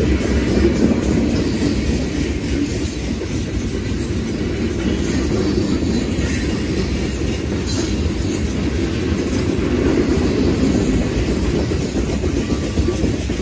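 Loaded rock-train freight cars rolling past: a steady rumble of steel wheels on the rails, with occasional faint clicks.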